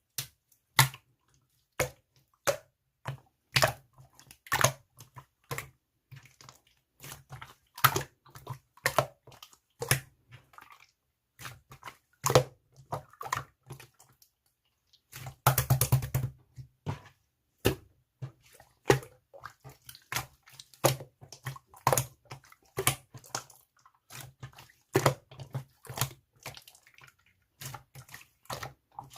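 Slime being squeezed, stretched and pressed by hand, giving irregular sharp wet pops and clicks as air pockets burst, with a denser run of crackling about halfway through.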